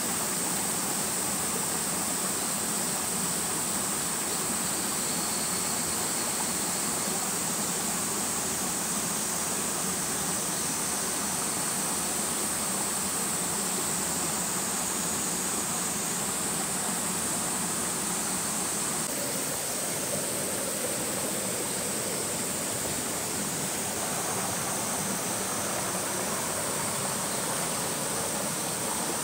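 Flowing water rushing steadily and evenly, with a bright hiss.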